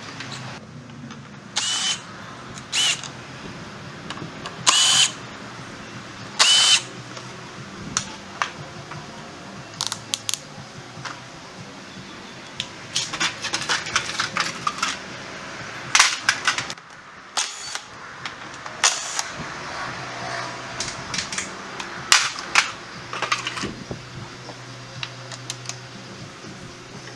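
Four short bursts from a power tool in the first seven seconds, then a run of metal tools and parts clicking and knocking while working on a scooter.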